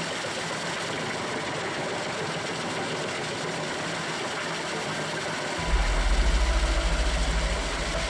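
A Doppstadt truck-mounted wood chipper runs steadily while its crane feeds logs in. About five and a half seconds in, a heavy low rumble sets in and lasts about two seconds.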